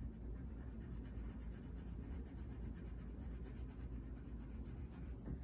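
Faint rubbing of a yellow wax crayon colouring over popcorn kernels on paper.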